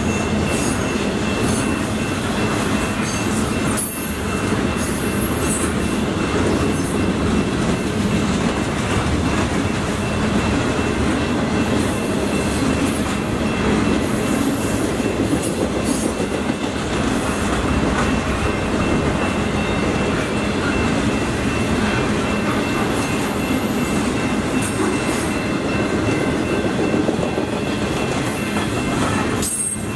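Double-stack intermodal freight cars rolling steadily past: a continuous rumble of steel wheels on rail, with a thin high tone running through it.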